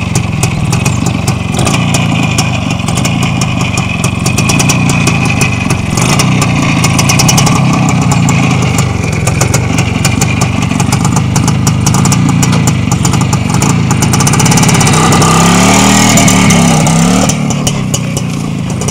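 Neval Minsk 125's single-cylinder two-stroke engine running steadily, then revving up and down a few times near the end as the bike pulls away.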